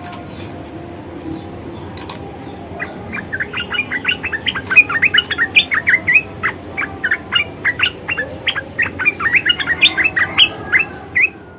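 Red-eyed bulbul chattering: a rapid, dense run of short, sharp high notes that starts about three seconds in and goes on for about eight seconds before stopping.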